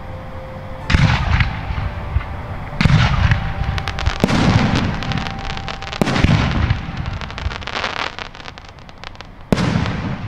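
Aerial fireworks shells bursting: five booms spaced one to three seconds apart, with dense crackling from the breaking stars through the middle of the run.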